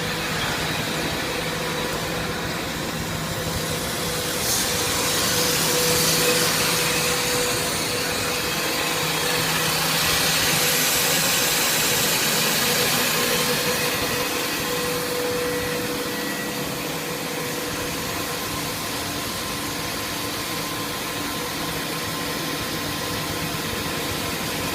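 H-beam drilling machine running steadily: a broad hiss over a constant motor hum. It grows louder and harsher from about four seconds in, and eases back after about fourteen seconds.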